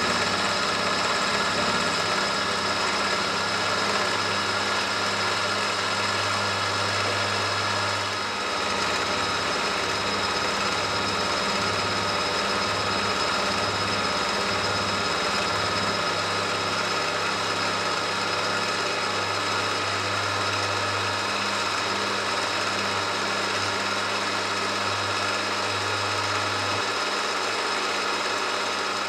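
Milling machine running steadily, its cutter taking a side cut along a metal block with the spindle set to about 1000 rpm.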